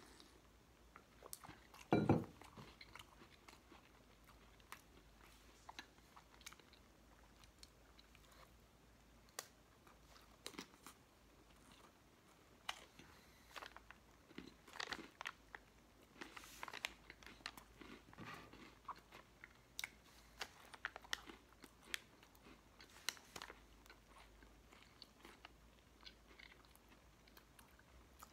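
A person chewing and crunching MRE food close to the microphone, with scattered short crunches throughout and one louder thump about two seconds in.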